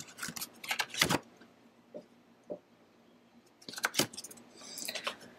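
Scattered light clicks in small clusters, about a second in and again near four seconds, with a few single clicks between.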